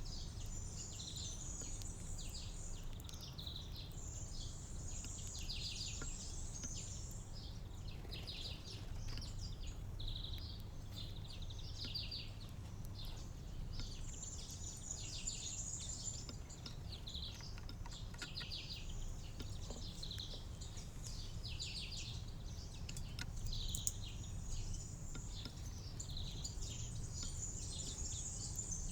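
Several small songbirds chirping and twittering almost without pause, with many short high chirps and quick trills, over a steady low background rumble.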